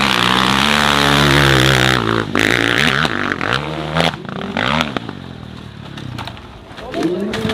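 Off-road motorcycle engines revving hard, the pitch rising and falling as the bikes climb. Several sharp knocks and clatter come about four to five seconds in. Another rev rises and falls near the end.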